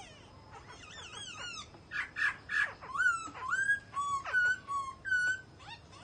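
Caged songbird singing: a few soft chirps, then from about two seconds in a run of loud, clear whistled notes that glide up and down.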